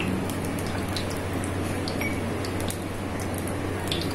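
Cooking oil heating in a small pan on a lit gas burner for tempering: a steady hiss with scattered faint ticks and crackles over a low hum.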